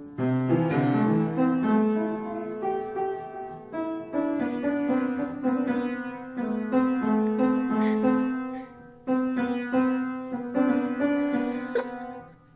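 Piano notes struck one after another, some ringing together as chords, with a short break about three-quarters of the way through before they fade out near the end.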